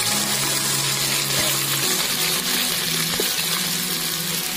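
Ginger-garlic paste sizzling in hot sesame oil in a large metal pot as it is stirred with a wooden spatula: a dense, steady hiss of frying.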